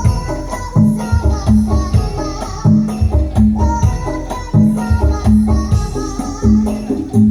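Loud music with a steady, repeating drum beat and jingling percussion, played over a large PA sound system during a sound check.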